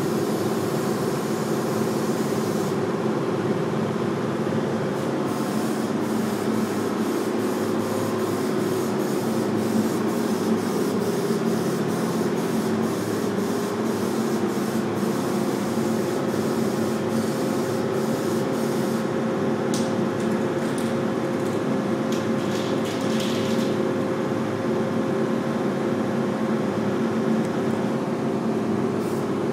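Air compressor running steadily with a low hum, while a paint spray gun hisses in short, repeated bursts through most of the stretch.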